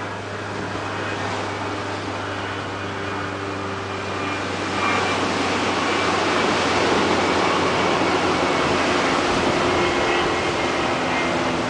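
Ocean surf breaking and washing against the shore just below, a continuous rush that swells louder about five seconds in. A steady low hum runs underneath.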